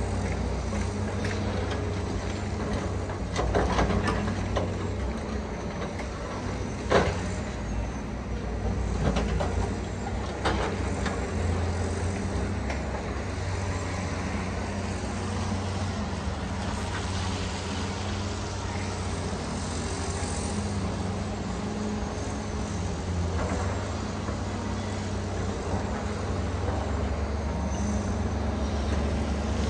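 Cat excavator's diesel engine running steadily while its MDE Scorpion S1600 grab handles broken concrete, with a few sharp clunks of concrete, the loudest about seven seconds in.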